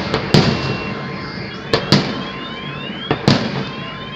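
Fireworks salute going off: sharp bangs that echo, one about a third of a second in, two close together near the middle and another just past three seconds. Several rising whistles from shells climbing between the bangs.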